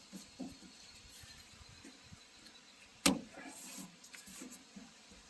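Quiet handling noises with a few small clicks and one sharp knock about three seconds in.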